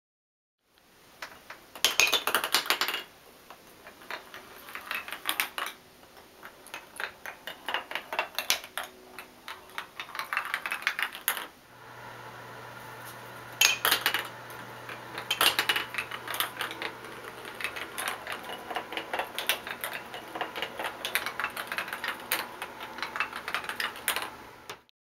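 Ping pong ball running down a zigzag run built from wooden toy planks, a long series of light clicks and clatters as it knocks against the planks at each turn, louder around two seconds in and again near the middle. A low steady hum comes in about halfway through.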